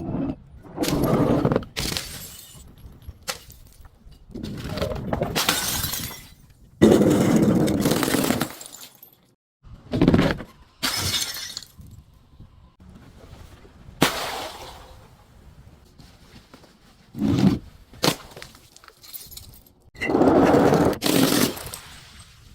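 Glass bottles breaking and being crushed: a run of separate crunching, shattering bursts, several starting or ending abruptly.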